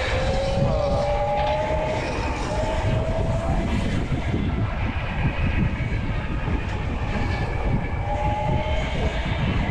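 Wind buffeting the microphone and road rumble from a bike riding through city traffic, steady and loud throughout. A thin whine rises slowly in pitch over the first few seconds and returns briefly near the end.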